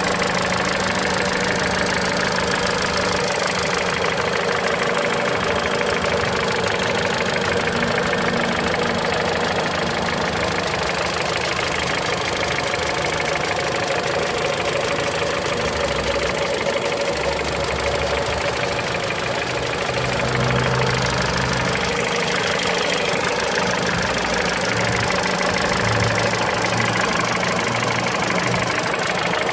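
Mitsubishi Lancer X's 4B10 1.8-litre inline-four engine idling steadily with a regular knock, a knock that the owner says comes only at cold idle and cannot yet explain.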